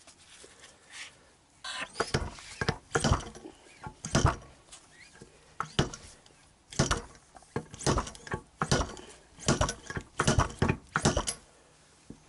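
Inner tube of a Yamaha XJ900S Diversion front fork yanked up hard again and again in its slider, slide-hammer style, giving a run of sharp knocks from about two seconds in to near the end. It is an attempt to drive out the fork oil seal, which stays stuck.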